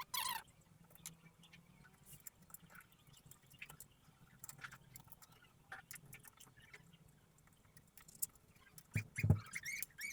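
Scattered small clicks, taps and short scrapes of a hard drive tray being screwed into a PC case, with a louder cluster of knocks and thumps about nine seconds in.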